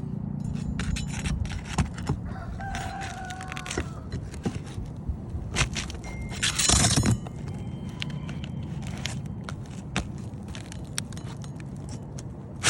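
A rooster crows once, starting about two seconds in, over scattered clicks and taps. A loud scrape lasting about half a second comes midway.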